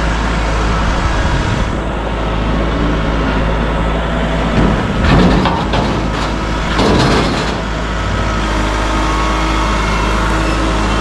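A vehicle's engine running steadily while driving along, with a few louder rattling knocks near the middle.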